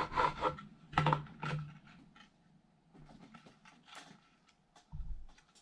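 Small plastic doll parts and accessories clicking and tapping as they are handled and fitted. The clicks are busy for the first couple of seconds, then thin out to a few light ticks.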